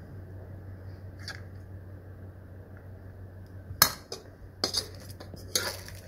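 A metal spoon clinking and scraping against a cooking pot and a china plate as rice is served, with a few sharp clinks in the second half over a low steady hum.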